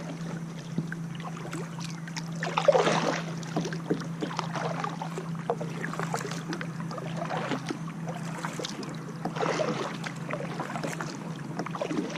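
Water splashing and trickling around a moving kayak, with two louder splashes, about three seconds in and again near ten seconds, over a steady low hum.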